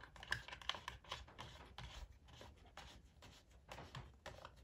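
Faint, irregular clicks and scrapes of a chainsaw's plastic air filter cover being pressed back into place and its screw knob turned by hand.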